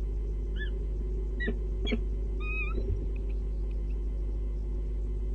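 A few short, clear, high chirping bird calls, some bending in pitch, over a steady low electrical hum.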